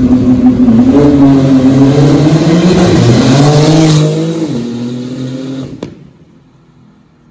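Porsche 911 GT2 RS's twin-turbo flat-six accelerating hard. The engine note climbs in pitch and dips twice as it shifts up, then fades as the car pulls away. It cuts off abruptly near the end.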